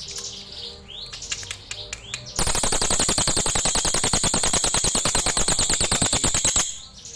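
Crested jay (cililin) calling: a few short chirping notes, then about two seconds in a loud, fast, dry rattle of rapid even pulses lasting some four seconds, which stops abruptly.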